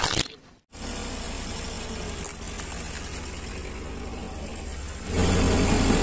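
A plastic toy cracks under a car tyre at the start. After a short break a car engine runs steadily at idle, growing clearly louder about five seconds in.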